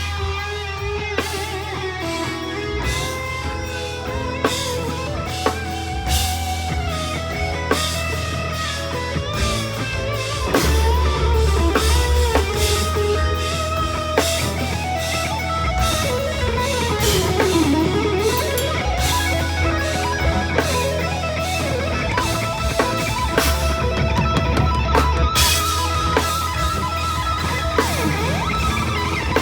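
A live band playing rock-style music, led by electric guitar over drum kit.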